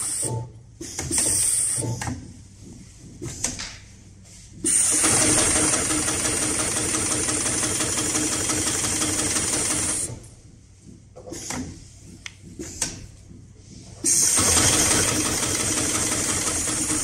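HighTex 733-30 long-arm industrial straight-stitch sewing machine stitching a thick felt panel, running in stretches: two brief bursts near the start, a long run of about five seconds from about five seconds in, and another run near the end. Between the runs it stops, leaving quiet gaps with a few small clicks.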